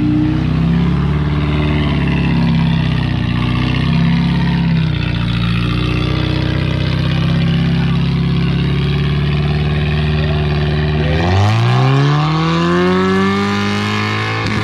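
Suzuki Vitara's original 1.6-litre engine running hard at fairly steady revs. About eleven seconds in, the revs drop and then climb quickly in a rising rev.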